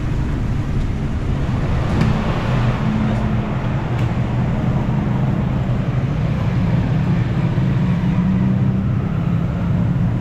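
Busy road traffic: motorbike and auto-rickshaw engines running past in a steady mix.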